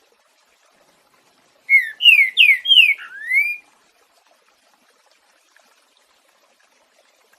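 Green-winged saltator (trinca-ferro) singing one phrase of its 'boiadeiro' song type: about five loud, clear whistled notes over roughly two seconds, the first four sliding down in pitch and the last sliding up, beginning about two seconds in.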